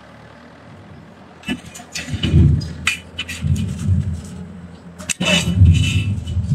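Forging manipulator running and rumbling as it grips and turns a hot steel block, the rumble swelling about a second and a half in, with several sharp metallic clanks.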